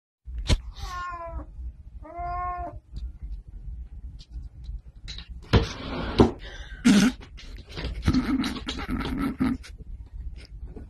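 A cat meowing twice, two short pitched calls, then a longer stretch of rustling and sharp knocks as it clambers up into an open drawer.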